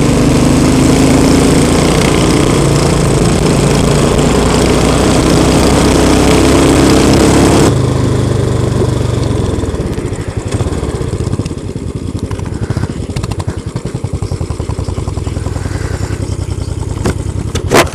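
Royal Enfield Continental GT's 535 cc single-cylinder engine pulling along the road with wind noise, which drops off sharply about eight seconds in. From about ten seconds the bike sits idling with a quick, even thump.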